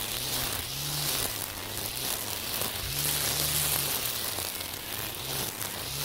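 Battery-powered Makita 40V string trimmer with its nylon cutting line whipping through tall weeds: a steady hiss over the motor's hum, which dips and recovers in pitch every second or so as the line meets the growth.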